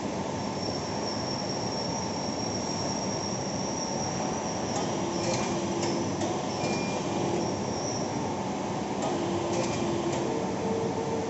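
100-ton rubber moulding hydraulic press running: a steady mechanical noise with a thin high whine through most of the first two-thirds. There are a few light clicks around the middle and again later, and lower steady hums come in during the second half.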